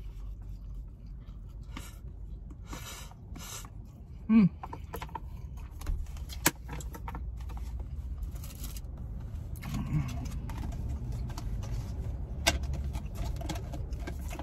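Chopsticks scraping and tapping in a plastic food container of rice, with plastic rustling and two sharp clicks, over a steady low rumble. A brief loud vocal sound comes about four seconds in.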